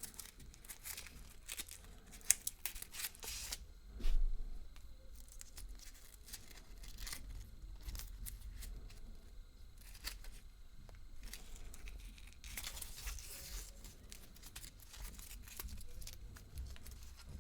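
Wrapper of a Kinder Surprise egg being torn and crinkled in the hands, in bursts of fine crackling, with one sharp knock about four seconds in.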